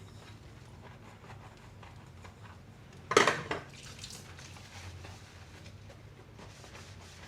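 Dishes being handled while washing up by hand: one loud clatter of crockery or cutlery knocking together about three seconds in, with faint handling sounds around it.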